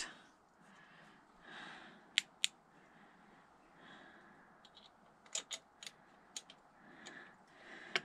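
Faint light clicks of small hand tools being handled among the engine parts: two sharp clicks about two seconds in, then a quick run of clicks a little past the middle.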